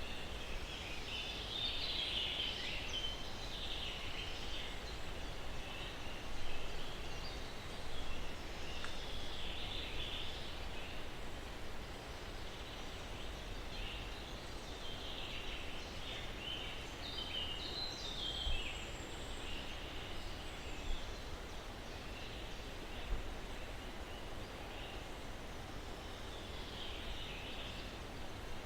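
Birds chirping, with short high calls scattered throughout, over a steady hiss of breeze through pine trees.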